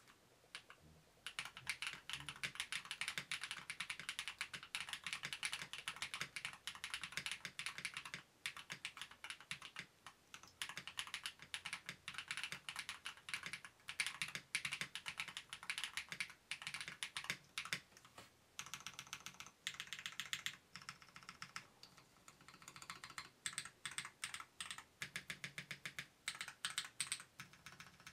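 Typing on a heavily modded budget 60% mechanical keyboard: a fast, continuous run of keystrokes starting about a second in, then slower, separate keystrokes with short pauses in the last third.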